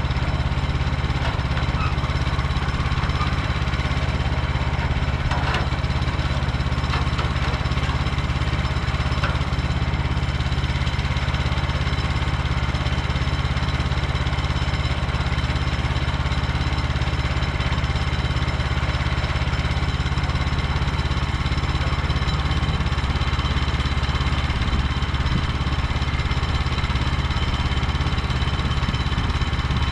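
Portable sawmill's small gasoline engine running steadily at an even speed.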